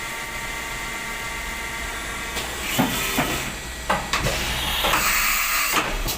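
Vertical machining centre drilling: a steady spindle whine, then from about two and a half seconds in a hiss with irregular clicks and knocks as the cut goes on, loudest about five seconds in.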